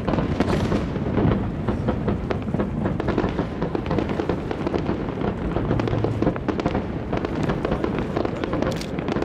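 Aerial firework shells bursting in quick succession: a dense run of crackles and bangs over a continuous low rumble.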